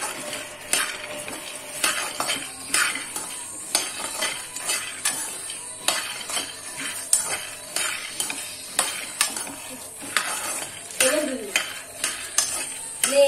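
Raw peanuts being dry-roasted and stirred with a metal spatula in a metal kadai. The peanuts rattle and scrape across the pan in repeated strokes, one or two a second.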